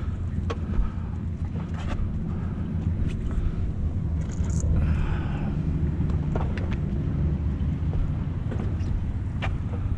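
Steady low rumble of wind and bicycle riding noise on an action camera's microphone, with scattered light clicks and taps and a brief brighter rustle about halfway through, as a gloved hand picks a piece of wire off the concrete.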